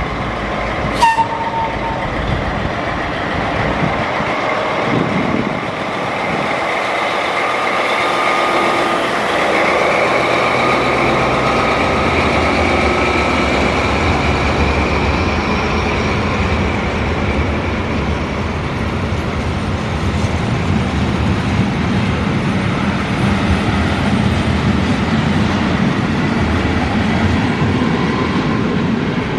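Train moving along the track: a steady rolling rail noise, with a faint high tone holding from about eight seconds in to past the middle.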